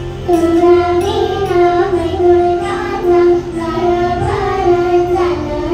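A boy singing a Marathi devotional song into a microphone, in long held notes that glide between pitches.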